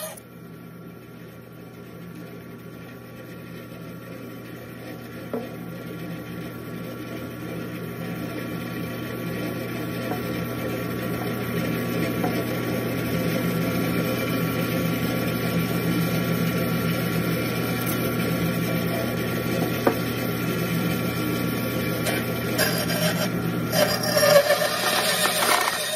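Bandsaw running, its blade cutting through a block of basswood: a steady motor hum under a rough rasping of the cut, growing louder over the first half.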